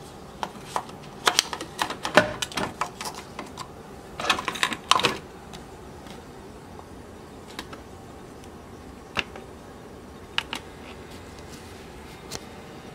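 Plastic clicks and clatter of a single-serve pod coffee maker being handled and loaded, thickest in the first five seconds, then a few single clicks spaced a second or two apart.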